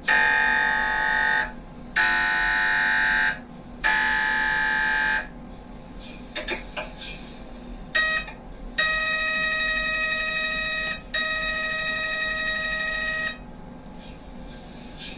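MRI scanner's gradient coils buzzing through a scan sequence as loud, pitched electronic tones: three bursts of about a second and a half each, then a short blip, then two longer tones of about two seconds each. A faint steady hum runs underneath between them.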